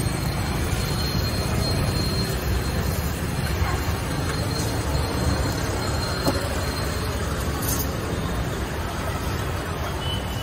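A steady low rumble, with a few faint clinks of a steel spoon against steel bowls and a steel thali.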